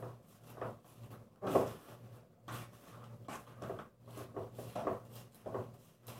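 Irregular soft rustles and small knocks of handling, the loudest about one and a half seconds in, over a steady low hum.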